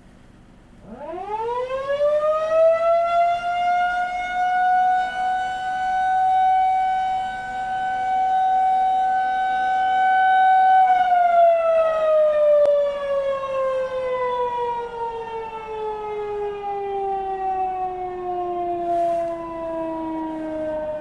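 Federal Signal 2001-130 outdoor warning siren sounding a short steady alert test. It winds up quickly about a second in, holds one steady tone with its loudness swelling and fading for about ten seconds, then winds down slowly in pitch.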